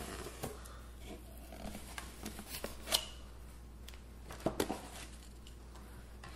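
A cardboard box and its paper packing being handled and opened: soft rustling with scattered small clicks and knocks, the sharpest about three seconds in and a couple more around four and a half seconds.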